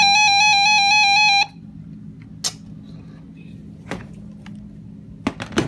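Electronic alarm beeper of a weather radio receiver sounding a loud, warbling tone for about a second and a half, followed by a few short clicks.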